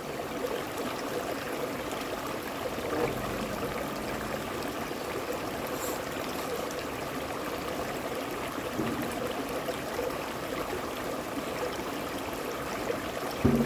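Shallow stream running steadily over rocks.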